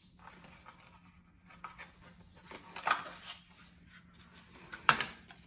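Paper wrapping rustling and crinkling as a small boxed pin is unwrapped by hand, with two sharper, louder crackles about three and five seconds in.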